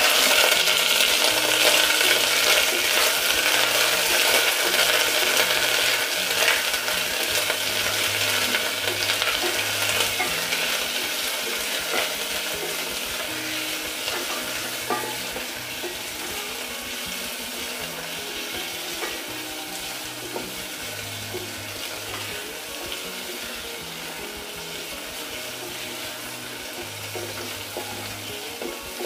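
Chicken pieces sizzling in hot oil with fried chopped garlic in a stainless steel pot, turned now and then with a wooden spatula. The sizzle is loudest as the meat goes in, then dies down steadily as the pan cools.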